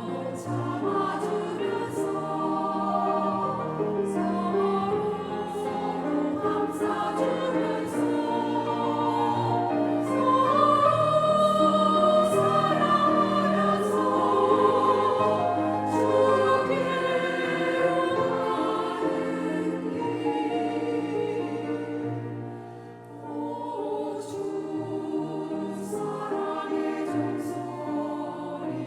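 Church choir singing a sacred song in several parts, growing louder toward the middle and easing back in a brief dip about two-thirds of the way through.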